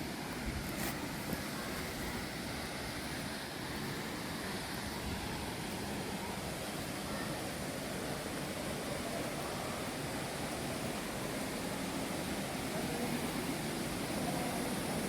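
Steady rush of flowing water from a creek and falls in a rocky gorge, growing slightly louder near the end, with a single faint click about a second in.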